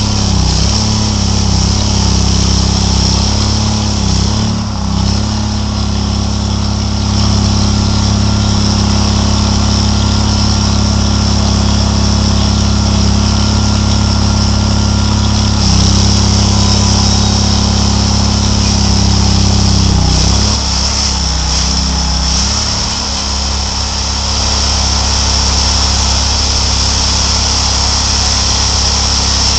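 Chainsaw engine running hard as the bar cuts into a plastered wall, its note dropping and picking back up several times under load.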